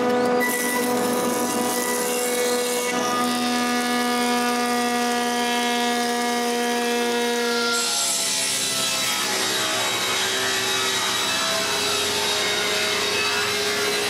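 Jointer running as a board of apple wood is fed over its cutterhead. About eight seconds in, this gives way to a table saw running and cutting the apple wood. Both are a steady machine hum.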